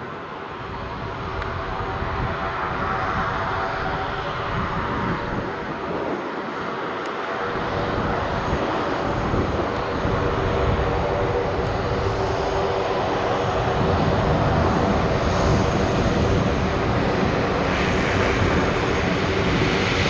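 Beechcraft B200C Super King Air's two Pratt & Whitney PT6A-42 turboprop engines and propellers at taxi power: a steady drone made of several steady pitches, growing louder as the aircraft taxis closer.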